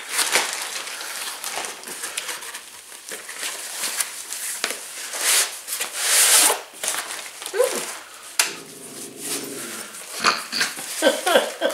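A cardboard box and plastic packaging rustling and crinkling as an item is pulled out of it, with a louder burst of rustling about six seconds in. A short low voice-like sound follows, and there are brief voice-like sounds near the end.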